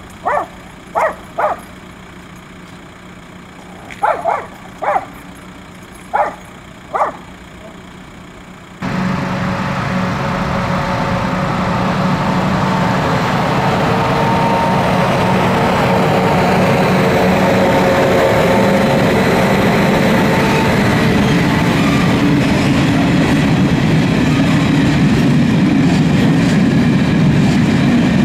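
A dog barks in short single and double yelps, eight in all, over the first eight seconds. About nine seconds in, a freight train's rumble starts suddenly and grows steadily louder as its open wagons roll across the level crossing.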